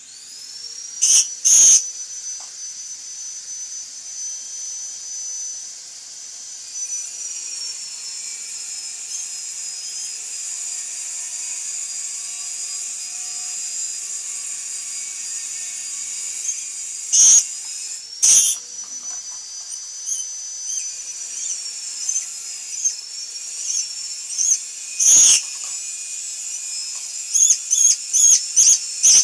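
Lory (nuri papua) giving short, loud, shrill shrieks: two about a second in, two more midway, another later, then a quick run of them near the end. A steady high whistling tone that drifts slowly up and down runs underneath.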